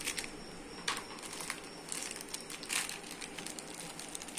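Small clear plastic packet crinkling and rustling as it is handled, in short irregular bursts.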